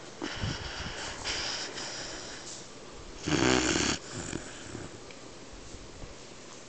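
Twelve-week-old Weimaraner puppy snoring in its sleep, with repeated snoring breaths and one much louder snore about three and a half seconds in.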